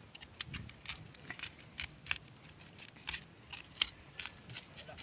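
A quick, irregular run of sharp clicks or snips, about three or four a second.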